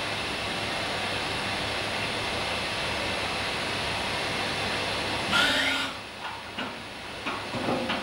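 Riello VFX 300 rotary transfer machine machining a brake master cylinder body: a steady hiss of cutting and coolant spray. About five seconds in there is a short louder burst with a sliding pitch, then a quieter stretch of clicks and knocks as the tool units pull back from the part.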